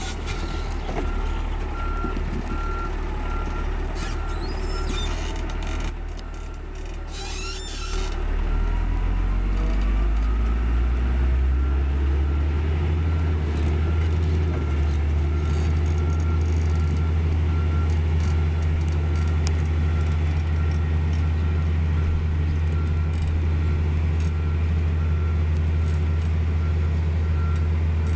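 Komatsu GD555 motor grader's diesel engine running, with a backup alarm beeping over it in a steady series of repeated beeps. About ten seconds in, the engine rises in pitch and gets louder, then holds steady under load.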